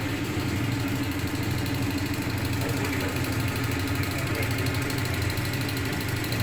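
Top-load washing machine running with a steady, even hum from its motor and drum.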